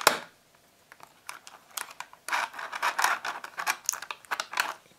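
Earphones being worked out of a plastic packaging tray: plastic rubbing and scraping in short scratchy bursts with small clicks, busiest in the second half.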